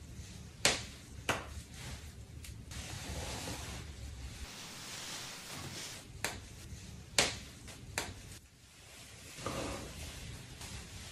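Sharp clicks of a wig's hair clips being snapped open one by one, about six in all, with soft rustling of hair as the wig is worked loose and lifted off the head.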